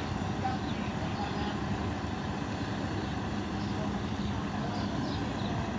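Steady rumble of an idling vehicle engine with a faint constant hum, amid street noise, with faint high chirps now and then.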